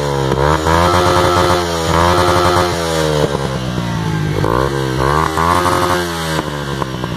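Honda CG 125's single-cylinder four-stroke engine through a Coyote RS1 aftermarket exhaust, revved up and let fall back to idle several times.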